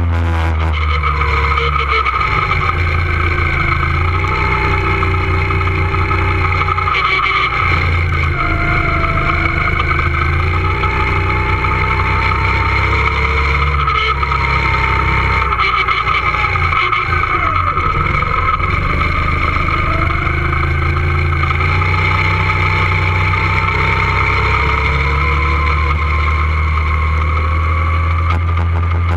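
A two-seater go-kart running at speed, heard close up from a camera mounted on the kart. Its motor gives a loud, steady drone with a constant high whine, and its pitch rises and falls again and again over a continuous low rumble.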